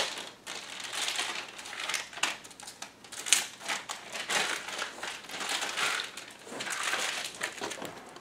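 Thin plastic wrapping crinkling and rustling in irregular crackles as it is handled and pulled off a remote control.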